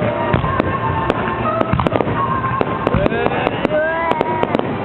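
Fireworks display going off, with many sharp cracks and pops in quick, irregular succession.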